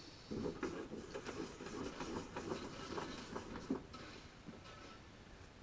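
Rip fence of a Bosch PTS 10 table saw being handled and switched over on its rail: an irregular clatter of rattles and clicks lasting about four seconds, then dying down. The saw's motor is not running.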